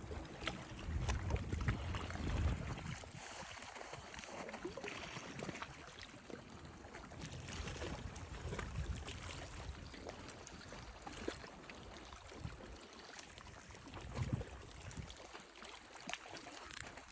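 Water lapping and trickling, with many small crackles and occasional low rumbling gusts.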